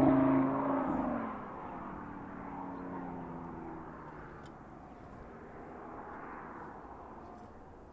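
Audi TT RS Roadster's turbocharged five-cylinder engine: a loud engine note that drops in pitch and fades in the first second or so as the car draws away, leaving a faint, distant engine sound that rises briefly near the end.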